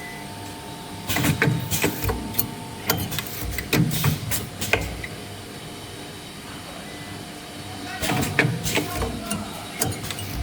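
Automatic wire ring-forming and butt-welding machine working through its cycle. A steady hum runs under two runs of sharp mechanical clacks and knocks, the first about a second in and the second near the end.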